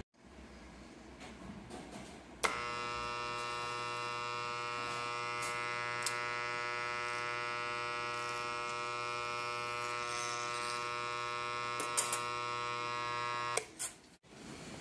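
Benchtop surgical-instrument demagnetizer humming steadily as it demagnetizes a pair of steel forceps laid across its top plate. The hum starts suddenly with a click about two and a half seconds in and cuts off abruptly near the end.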